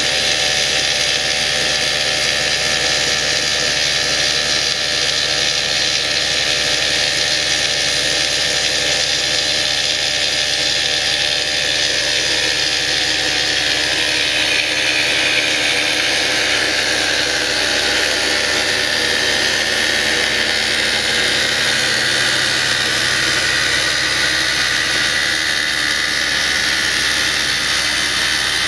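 Piedmont PRD-60 excavator-mounted rock drill boring into rock, a loud, steady hissing, grinding noise as dust blows out of the hole. A low engine hum runs underneath, and the pitch of the noise shifts slightly past the middle.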